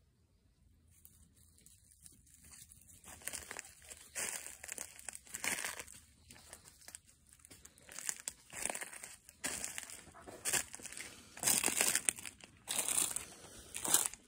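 Dry leaves and brush crunching and crackling as they are disturbed, in irregular bursts that start about three seconds in and grow louder toward the end.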